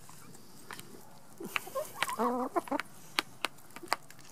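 Backyard hens feeding from a paper plate of grits: sharp pecking clicks of beaks on the plate every so often, and a short, wavering cluck from a hen about two seconds in.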